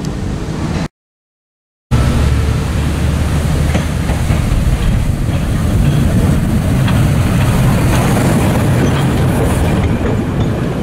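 Harz narrow-gauge 2-10-2 tank steam locomotive running past slowly, with a heavy low rumble and scattered light clicks from its wheels on the rails. The sound cuts out completely for about a second near the start.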